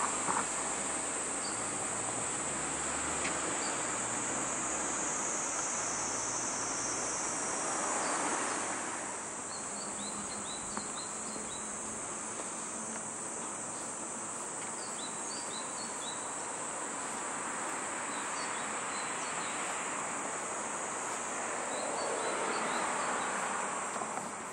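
Steady high-pitched insect drone from the trees over a wash of road traffic, with passing cars swelling the noise twice, about eight seconds in and near the end. Short high chirps come and go in the middle.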